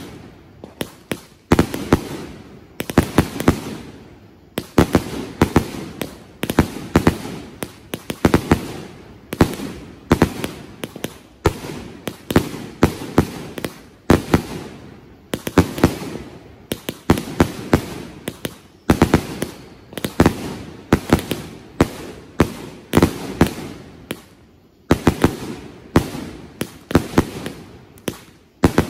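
Three Dead Heat firework cakes firing together: a continuous barrage of very loud sharp bangs that come in rapid clusters a second or two apart.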